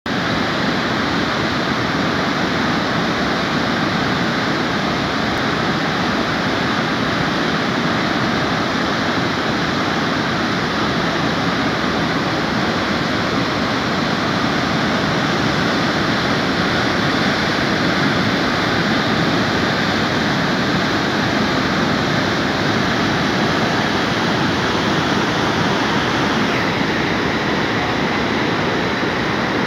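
Rain-swollen mountain river in flood, muddy water rushing over boulders through a rocky gorge: a loud, steady rush of white water, a little duller near the end.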